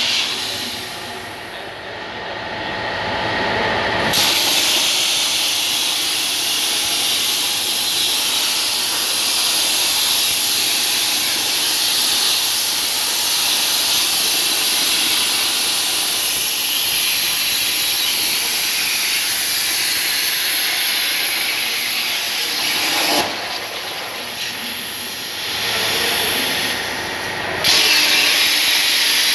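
CNC plasma cutter torch hissing steadily as it cuts 2 mm sheet steel. The hiss comes up sharply about four seconds in and eases off for a few seconds near the end before picking up again.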